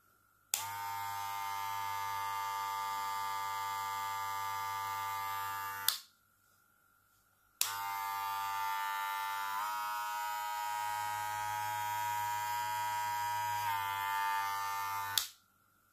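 Cordless hair clipper of the Wahl Cordless Senior type switched on and running steadily for about five seconds, then switched off. It is switched on again a second and a half later and runs for about seven and a half seconds, its pitch shifting slightly twice, before it is switched off.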